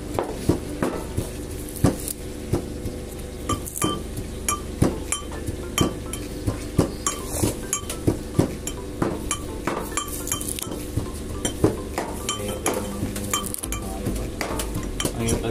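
Dishes and metal utensils clinking and knocking at an irregular pace, a few times a second, some strikes ringing briefly, over a steady low hum.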